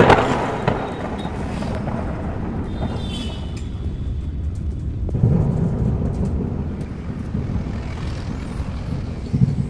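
Inside a moving car: steady engine and road rumble from driving, with a couple of louder bumps about five seconds in and near the end.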